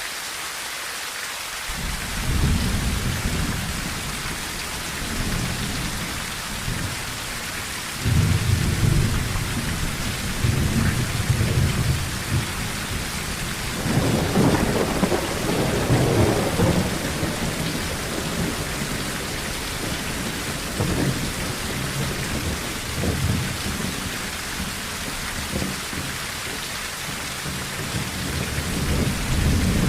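Steady rain on a tin roof with rolling thunder. A low rumble starts about two seconds in, a louder peal comes about eight seconds in, and another swells around fourteen seconds, then rumbles on over the rain.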